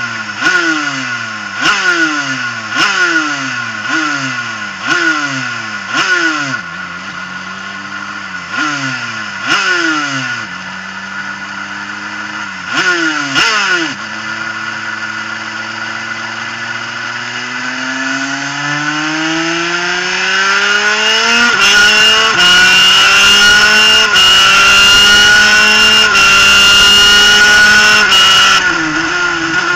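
Superkart's two-stroke engine heard onboard. For about the first 14 seconds it swells and falls away roughly once a second through a slow corner. It then accelerates hard, its pitch climbing with a brief drop at each gear change, and gets louder as it revs near 12,700 rpm.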